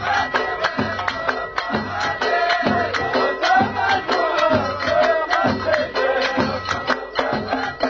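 Ahwach music: men singing together in unison over a steady beat of hand-struck frame drums.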